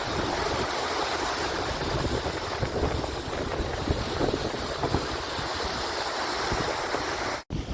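Strong wind buffeting the microphone in low gusts over the steady wash of Lake Michigan waves. The sound drops out for an instant near the end.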